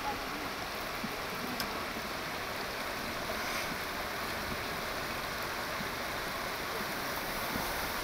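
Shallow rocky river running over stones: a steady, even rush of flowing water.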